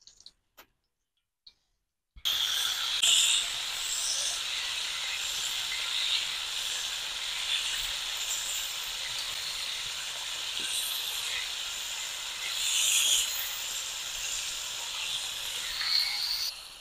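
Masala-coated chicken pieces deep-frying in hot oil in a wide iron pan: a steady sizzle with scattered crackles. It starts suddenly about two seconds in, after near silence, and cuts off just before the end.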